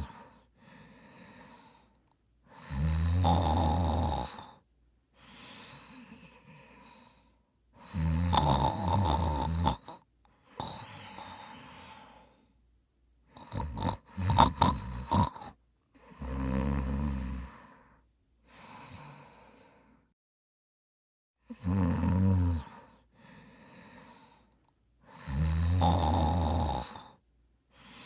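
A person snoring loudly: five long snores of about two seconds each, each followed by a softer breath. About halfway through comes a burst of short, choppy snorts.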